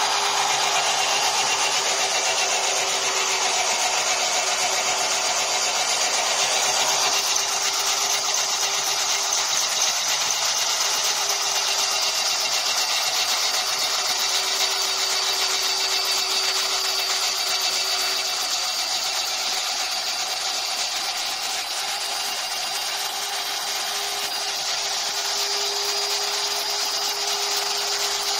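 Electric mini chaff cutter running steadily, its motor driving the cutter wheel by V-belt while the blades chop dry grass fed into the chute: a continuous hum under a dense whirring hiss.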